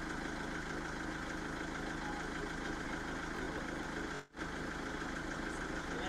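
Steady hum of an idling engine that cuts out briefly a little over four seconds in.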